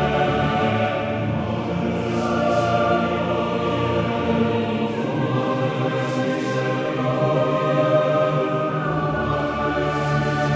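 Choral music: a choir singing long, held chords over a steady musical backing.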